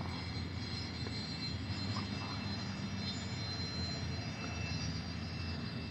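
Steady low background rumble with a faint high hum, holding an even level throughout.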